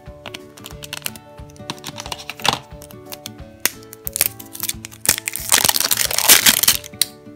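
Clear plastic wrapping on an acorn-shaped toy capsule crinkling and crackling as it is handled and peeled off, in a few short crackles and then a longer, louder stretch near the end. Background music with held notes plays throughout.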